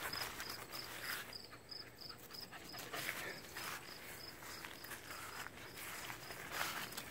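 Footsteps swishing through grass, with an insect chirping at a high pitch in an even rhythm of about three chirps a second.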